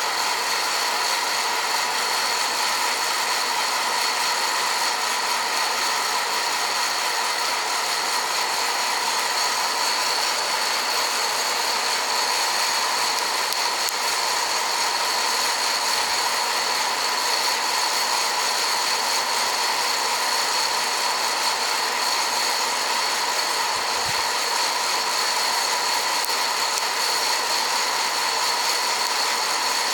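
Hot-air popcorn popper roasting coffee beans: its fan and heater run with a steady whir and a constant high whine, the beans into second crack.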